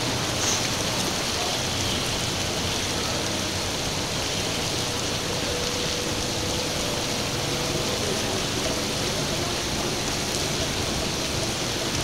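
Steady hiss of rain falling during a sudden storm, with a faint hum about halfway through.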